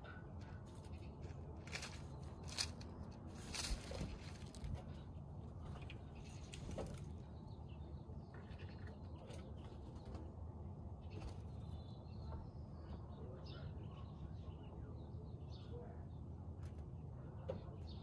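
A scrub-jay moving about on the ground: a few sharp flutters and taps with short chirps, mostly between about two and five seconds in, over a steady low background rumble.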